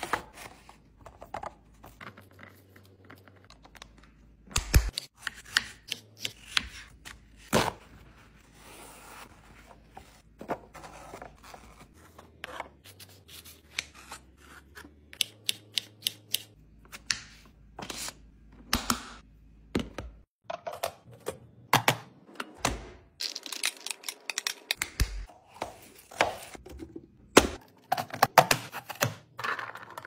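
Kitchen prep handling sounds: a knife slicing strawberries on a plastic cutting board, with food and containers being handled. The result is a run of irregular clicks, taps and knocks, thickest in the second half.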